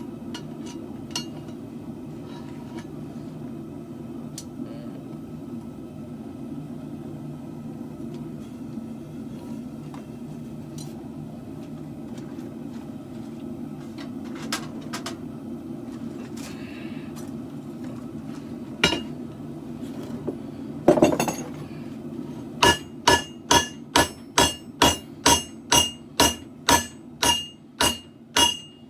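A steady low hum with a few scattered clicks and one sharp knock, then, about 23 seconds in, a hammer starts striking the steel of a katana blade on the anvil in a steady rhythm, about two and a half ringing blows a second.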